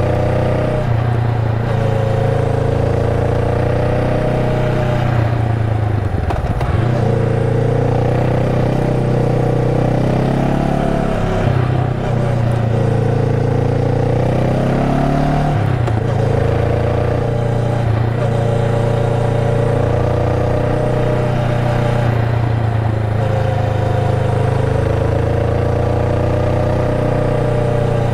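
Honda Rebel 500's 471 cc parallel-twin engine running steadily while the bike is ridden. Its pitch wavers with the throttle and dips briefly a few times, about 6, 12 and 16 seconds in.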